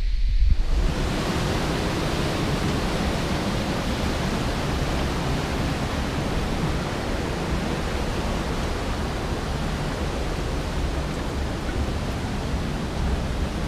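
Steady rushing of a gorge creek and its cascades: an even hiss that starts about half a second in and holds without change.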